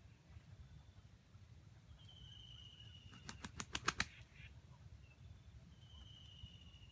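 Junglefowl wings flapping: a quick run of about seven wingbeats, over in under a second, about halfway through.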